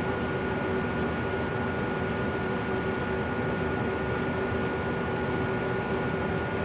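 Miller E3 furnace running with a steady buzz, a few constant tones over an even rushing noise, holding unchanged throughout.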